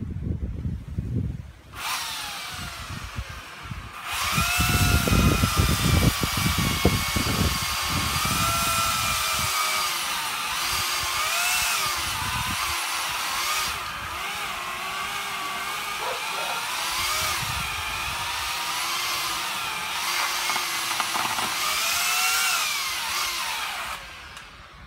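A chainsaw starts about two seconds in and runs at a low speed, then is revved hard about four seconds in. It cuts into the trunk of a rotting birch for a felling cut, its pitch dipping and rising as the chain bites the wood, and stops just before the end.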